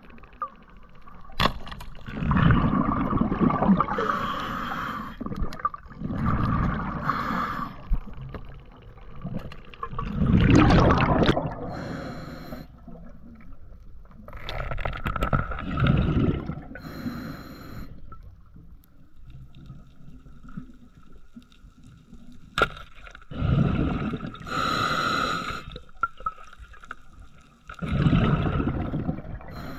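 Scuba diver breathing through a regulator underwater: bursts of exhaled bubbles every few seconds, between inhales. A single sharp crack comes about two-thirds of the way in as the speargun fires.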